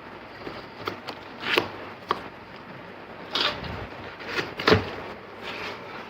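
Cardboard keyboard box being opened and handled: a run of short scrapes, taps and sliding rustles of the flaps and packaging, the loudest a little under five seconds in.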